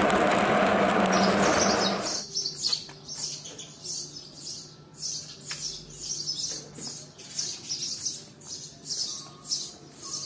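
Steady crackle of a stick-welding arc on a 6013 electrode, which stops about two seconds in. Then short, high scraping strokes repeat evenly, about two a second, as the slag is cleaned off the fresh weld bead.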